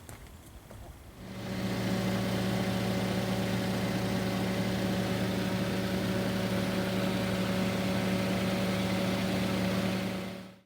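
Daihatsu Copen LA400K's small three-cylinder turbo engine idling steadily after its oil change, starting about a second in and cutting off suddenly near the end.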